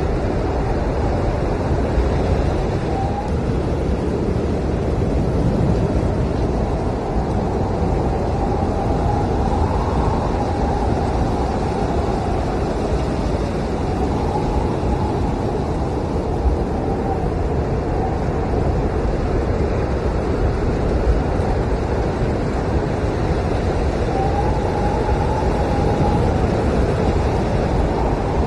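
Blizzard wind blowing hard and steadily, a dense rushing noise with a faint wavering howl that rises and falls now and then.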